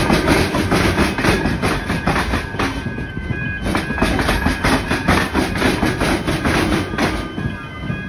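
Comeng electric suburban train passing over a tram square, its wheels clattering rapidly over the gaps where the tram tracks cross the railway rails.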